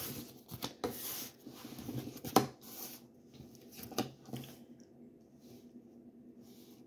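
Tarot cards being handled and laid out on a wooden table top: sliding and rubbing against the wood, with two sharp taps about two and a half and four seconds in. It grows quieter near the end.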